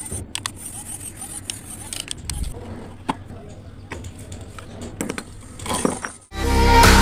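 Homemade RC dump truck's small DC gear motors running, with scattered clicks and rattles as it drives and tips its bed to dump a brick. Electronic music with a heavy beat cuts in about six seconds in and is the loudest part.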